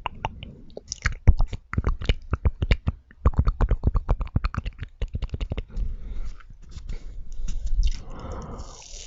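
Close-miked chewing of marshmallows: rapid wet mouth clicks and smacks, with a short breathy noise near the end.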